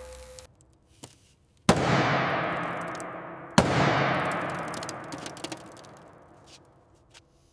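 Two sharp bangs about two seconds apart, each trailing off in a long fading rush of noise, with a few faint clicks between them.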